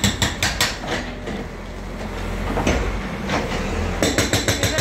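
Hydraulic breaker on a JCB backhoe loader hammering into concrete road, about seven blows a second. It stops about a second in, leaving the loader's diesel engine running, and starts hammering again near the end.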